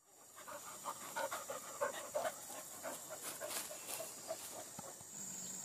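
Hunting dog panting fast, about four breaths a second, fading away after about four seconds. Insects start chirring steadily near the end.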